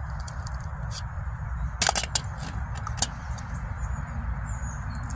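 Small knife scoring an X into the hard shell of a chestnut on a bamboo cutting board: a few sharp clicks and cracks, a cluster about two seconds in and another about a second later, over a steady low background rumble.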